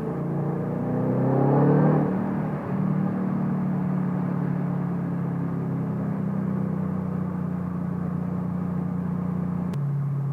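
A 2014 Shelby GT500's supercharged 5.8-litre V8 and exhaust rising in pitch as the revs climb over the first two seconds, then holding a steady drone at one pitch. Near the end there is a click and the engine note changes.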